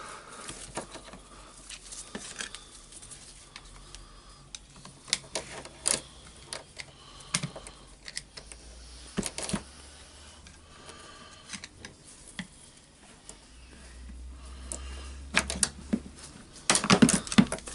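A screwdriver working at a rotary hammer's anti-vibration part to push it out: scattered small clicks and knocks of tool on housing, with a cluster of louder knocks near the end as the part comes free.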